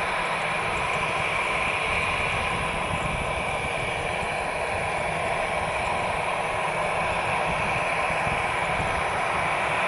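Airbus A320-216's twin CFM56-5B turbofan engines running at taxi power, a steady jet whine and rush that grows a little louder toward the end as the airliner approaches.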